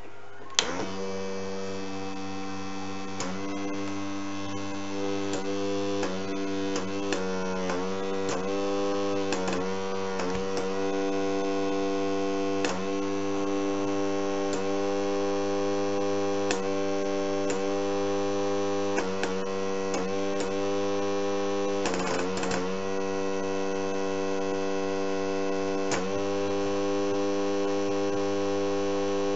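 Small electric air compressor of a fischertechnik pneumatic model switching on with a click and running with a steady hum. Its pitch dips briefly now and then, along with scattered clicks.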